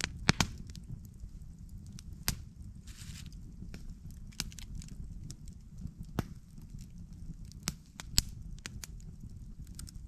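Campfire crackling: irregular sharp pops and snaps over a steady low rumble.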